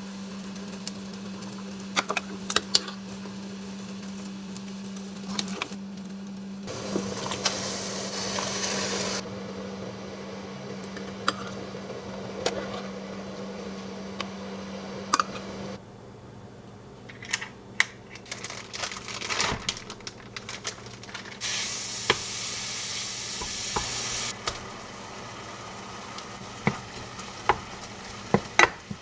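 Food sizzling in a pan while it is stirred, with utensils clicking and scraping against the cookware. The sizzle grows louder twice, for a few seconds each time, and a steady hum stops about two-thirds of the way through.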